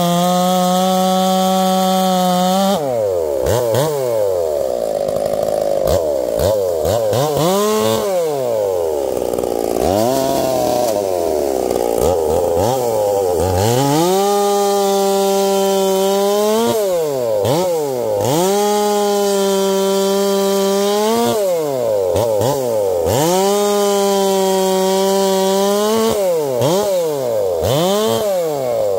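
Ported Stihl chainsaw cutting through a large log. It runs at a steady high pitch at full throttle in the cut, and several times the pitch swoops down and back up in quick throttle blips before it settles into the cut again. It drops off near the end.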